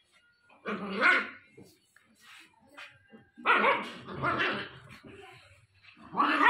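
Japanese Spitz puppy, about 60 days old, barking in three bursts: a short one about a second in, a longer run in the middle, and another near the end.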